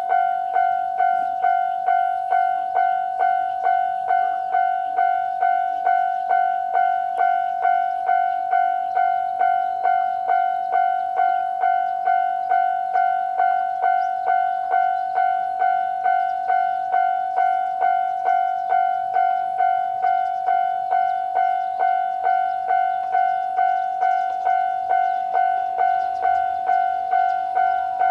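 Electronic bell of a Japanese railway level-crossing alarm ringing at its standard volume setting. It gives an even, repeated 'kan-kan' at about three strikes every two seconds, each strike sharp and then fading slightly.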